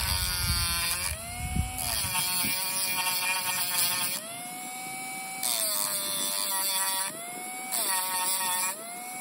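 Bauer rotary tool with a sanding drum grinding down the head of an Opinel knife's pivot pin so the pin can be punched out. The motor whine dips and rises in pitch as the drum works the metal, with three spells of harsher grinding hiss.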